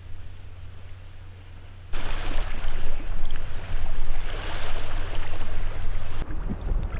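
Lake water splashing and sloshing around a sea kayak being paddled, coming in suddenly and loud about two seconds in in uneven surges, with wind thumping on the microphone near the end.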